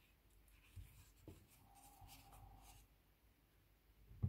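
Near silence, with faint scratching and rubbing from a fine steel crochet hook working cotton thread.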